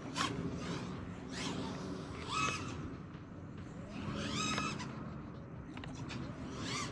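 FPV racing quadcopter's T-Motor F40 IV brushless motors whining in surges, the pitch sweeping up and back down with each punch of throttle, four or five times.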